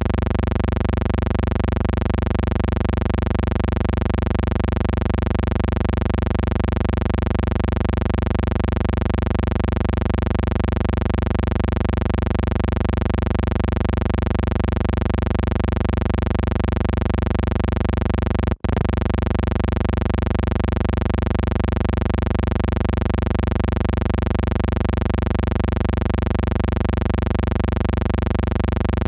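Steady, unchanging electrical hum with a stack of even overtones over a low drone, the kind of noise that fills the soundtrack of a silent film transfer. It cuts out for an instant about two-thirds of the way through.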